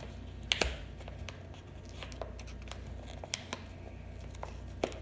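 Hands working at a paper mailer's tightly glued flap: scattered paper crinkles and sharp ticks, the loudest about half a second in and again near the end, over a low steady hum.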